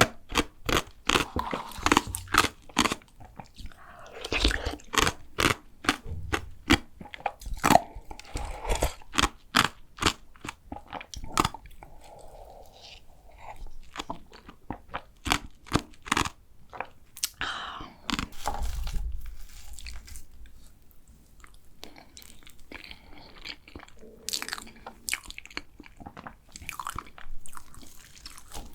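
Close-miked crunching, biting and chewing of a flaky layered chocolate pastry, in quick runs of sharp crackles with short quieter pauses between bites.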